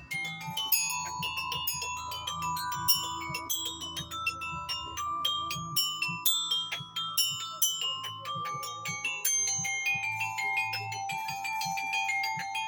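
Tuned mallet percussion played fast: a dense run of quick struck notes ringing over one another, with longer held tones underneath.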